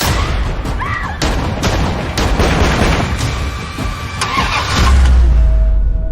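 Action sound effects from a film trailer: a car engine running hard, with sharp hits and short squealing glides, then a heavy deep rumble near the end.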